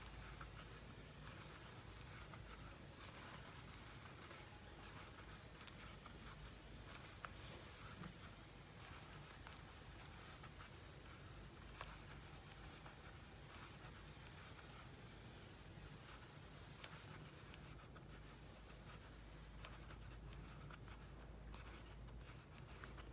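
Near silence with faint scratching and scattered small clicks of a crochet hook pulling yarn through single crochet stitches, over a low steady hum.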